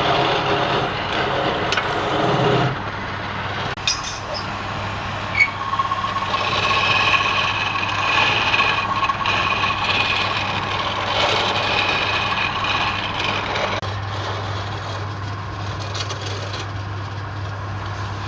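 Wood lathe running with a steady motor hum while a turning tool scrapes against the spinning wood, the cut sometimes ringing with a high squeal. There are a couple of sharp clicks.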